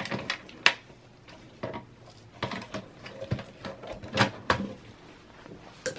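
Irregular sharp clicks and taps, about eight in a row, of hands and a screwdriver working the plastic latch of the 24-pin power connector inside a Dell Optiplex small form factor computer case.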